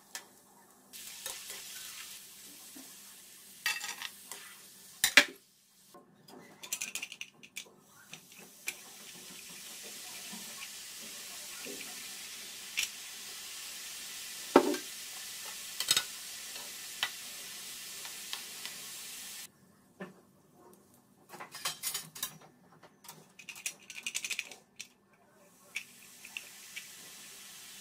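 Hot oil sizzling steadily in a frying pan as peanuts and then omapodi (gram-flour sev) strands deep-fry, with sharp clinks and knocks of a metal strainer and murukku press against the pan. The sizzle breaks off suddenly about two-thirds through, and a run of clattering clicks follows.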